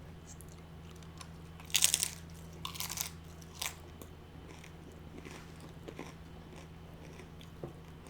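Close-up crunching bites into nacho tortilla chips: two loud crunches about two and three seconds in, then quieter chewing with small crackles.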